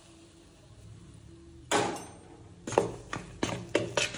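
Kitchen utensil and bowl sounds as hot oil is added to wheat flour for chapati dough: one louder scrape or knock about halfway through, then a quick run of sharp clinks against the bowl near the end.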